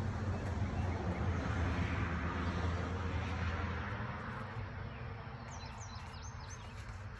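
Outdoor background noise with a low rumble that fades after about four seconds, then a few quick, high bird chirps near the end.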